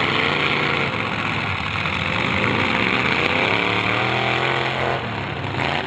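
Demolition derby car engines running and revving in the arena, their pitch rising and falling over a steady din.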